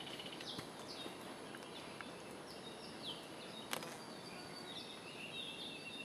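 Small forest birds chirping: short, high, downward-sliding notes spaced through, and a run of quick warbling notes near the end, over a faint steady hiss. A single sharp click a little past halfway.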